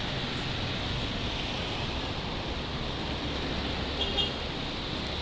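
Street traffic on a wet road: a steady hiss of tyres with low engine hum from passing vehicles. A brief high-pitched sound cuts in about four seconds in.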